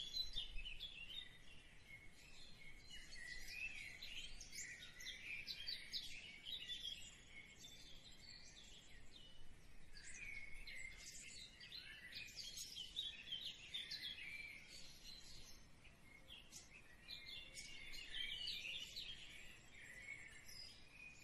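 Faint chorus of small birds chirping, many short high calls overlapping without a break.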